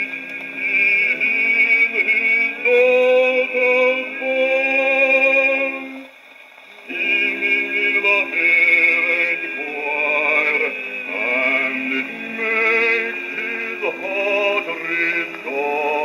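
A 1932 78 rpm shellac record of a bass singer with orchestra, playing on a wind-up acoustic gramophone. A male voice sings with a quick vibrato, with a brief break about six seconds in. The sound is thin, with no deep bass or high treble.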